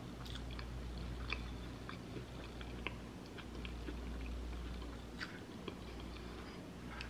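A person chewing a mouthful of crunchy hot honey fried fish, with scattered small crunches and mouth clicks.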